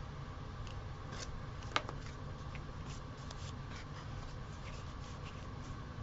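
Paper craft pieces being handled on a desk: soft rustles and light taps, with one sharp click about two seconds in, over a steady low hum.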